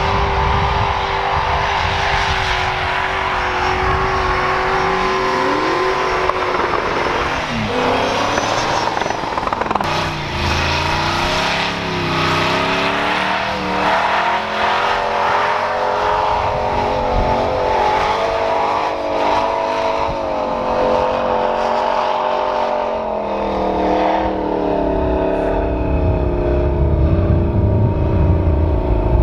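V8 engines of swapped off-road Jeeps running at high revs as they power through snow. The pitch holds high and wavers, with a quick rise and drop a few seconds in, and a heavier low rumble near the end.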